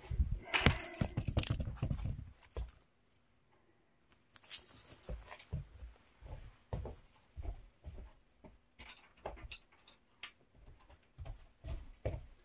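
Handling knocks and rumble as the phone is set down, then a brief jingle of keys about four seconds in, followed by scattered small clicks, knocks and rustles of someone gathering her keys and things.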